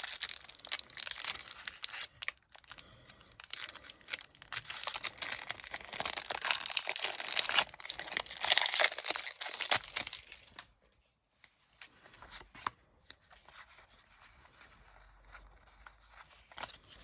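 A Pokémon booster pack's foil wrapper being torn open and crinkled, with dense rustling for about ten seconds. After that it turns quieter: a few small rustles and clicks as the cards are handled.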